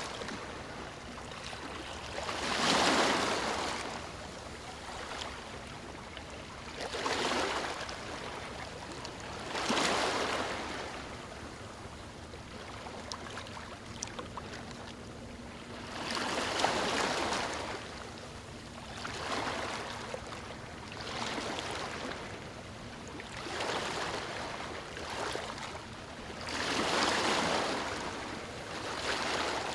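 Small ocean waves breaking and washing up a beach, one surge of surf every few seconds over a steady hiss of water. The largest breaks come about three seconds in and near the end.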